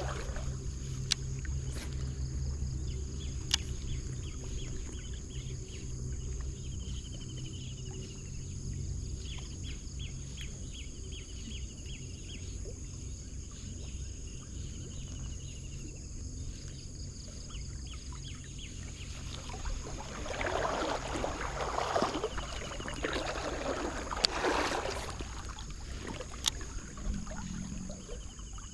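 Stream-side outdoor sound: flowing water and a steady high drone, with a few short chirps and clicks. A louder rushing, splashing stretch comes about two-thirds of the way through.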